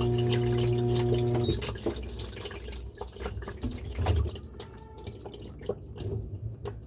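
Washing machine humming steadily, cutting off suddenly about a second and a half in, followed by water dripping and trickling with small irregular clicks.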